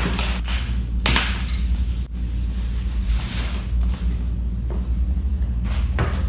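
A padded plastic mailer is torn open and its packaging crinkles as a box is pulled out and handled, in several irregular bursts of tearing and rustling. A steady low hum runs underneath.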